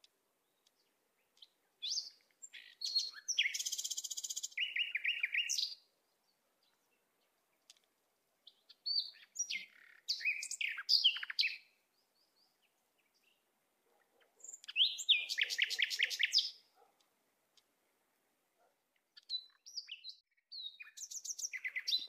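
Bulbuls chirping and calling in four short bouts a few seconds apart, each a quick run of high notes and trills.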